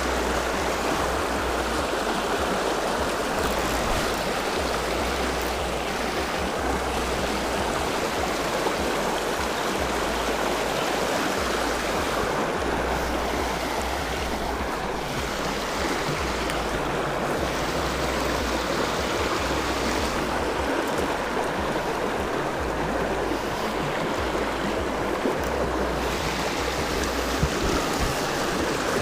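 Mountain stream water flowing, a steady, unbroken rush.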